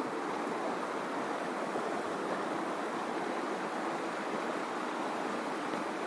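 Steady rush of a fast stream flowing over rocks.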